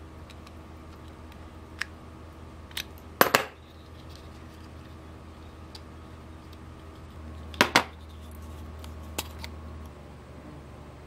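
Small 3D-printed plastic safe parts and a metal precision screwdriver being handled: scattered sharp clicks, with louder clatters about three seconds in and again near eight seconds, over a steady low hum.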